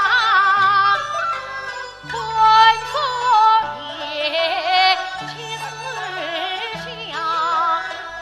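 A Yue opera aria: a voice sings a melismatic line with heavy vibrato over a traditional instrumental accompaniment of steady low notes.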